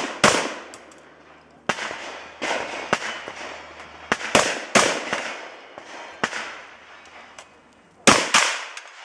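A string of gunshots fired at uneven spacing, some close together, each trailing off in a long echo.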